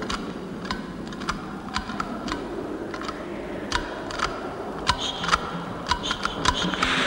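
Cartoon footstep sound effects: light, sharp clicks with a brief ring, about one every 0.6 s at first, then quicker and overlapping in the second half as a second creature walks too.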